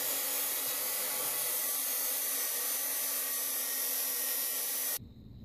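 DeWalt abrasive chop saw cutting through metal bracket stock, giving a loud, steady, high hissing grind that stops abruptly near the end.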